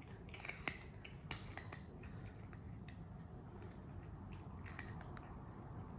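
Faint, scattered plastic clicks and taps from a cat nosing and pawing at the sliding blocks and holes of a plastic treat-puzzle board, most of them in the first couple of seconds.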